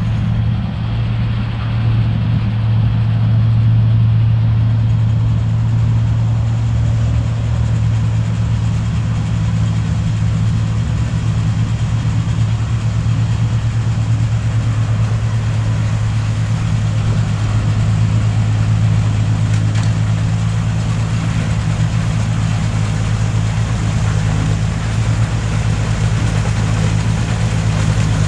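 1955 Ferguson TO35 tractor's engine running steadily with a low hum, working a front-mounted snowblower auger through wet snow.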